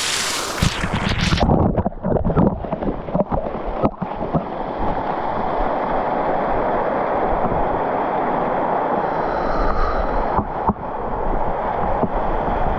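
Steady rush of water in a canyon, with a few irregular knocks and splashes in the first few seconds before it settles to an even rush.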